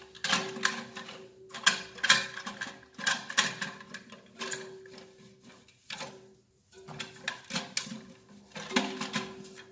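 Plastic parts of a toilet cistern's flush mechanism clicking and rattling as it is worked by hand to test it after refitting. The clicks come in irregular clusters, with a short pause about six seconds in.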